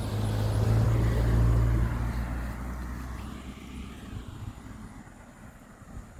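A motor vehicle passing by: a low engine hum that swells over the first two seconds, then fades away.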